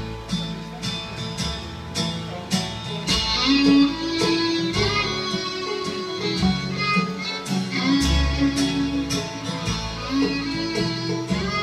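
Live bluegrass band playing an instrumental waltz: a fiddle carries the melody over acoustic guitar, banjo and upright bass.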